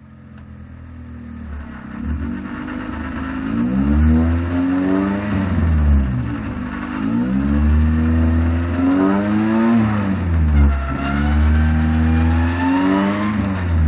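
Honda CRX race car engine under hard acceleration, its pitch climbing and then dropping back about three times. The sound fades in over the first few seconds.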